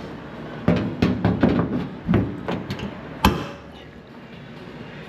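A run of about eight or nine sharp knocks and taps on sheet metal as a patch panel is fitted into the rear corner of a VW Bus body; the last knock, a little past three seconds in, is the sharpest. Then it goes quieter.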